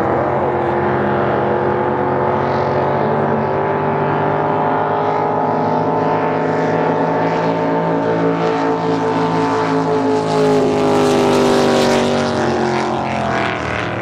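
Drag boat race engines at full throttle during a run down the course, a loud steady engine note with several tones sounding together. The pitch is still climbing at the start and eases down slightly near the end. It is loudest about ten to twelve seconds in.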